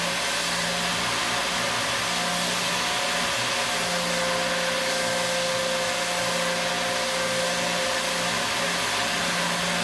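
CNC mill roughing a small badge pin with a quarter-inch end mill at about 10,000 RPM. It makes a steady hissing rush over a steady whine, and a lower hum drops out and comes back a few times as the cutter's engagement changes.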